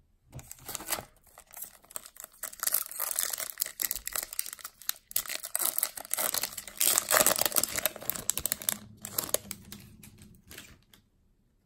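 Foil-lined wrapper of a Topps Chrome baseball card pack being torn open and handled: an irregular crackling rustle, loudest about two-thirds of the way through, that dies away near the end.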